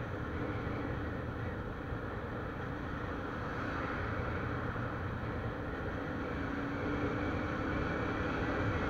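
Motorcycle riding at steady speed: the engine running under a steady rush of wind and road noise over the microphone, getting a little louder near the end.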